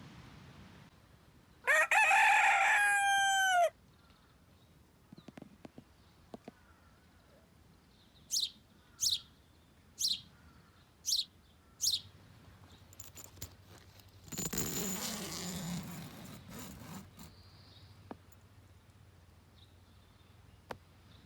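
A rooster crowing once, about two seconds in. Later come five short, high-pitched bird calls about a second apart, then a few seconds of rushing noise.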